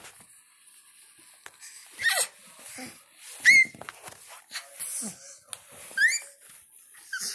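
Baby making several short, high-pitched squeals, some gliding upward in pitch, with soft breathy noises between them.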